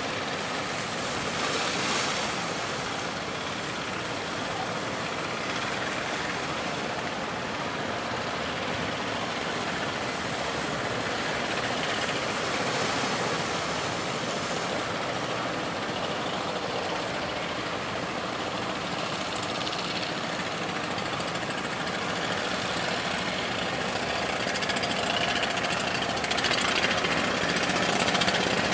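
Fishing-boat engines running steadily, mixed with a continuous rush of wind and surf.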